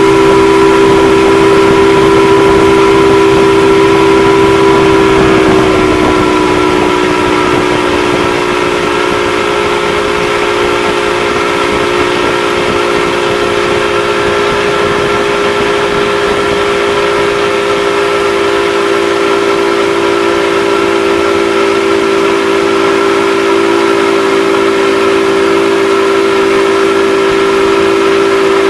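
Motorboat engine running steadily at towing speed with a droning whine, easing slightly in pitch and loudness about six seconds in, over a rushing hiss of wind and wake water.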